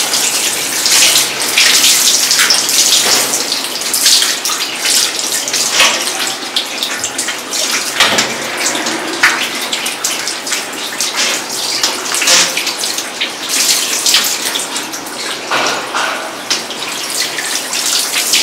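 Water running from a handheld shower sprayer and splashing onto a wet cat and the floor of a grooming tub, steady throughout with scattered splashes.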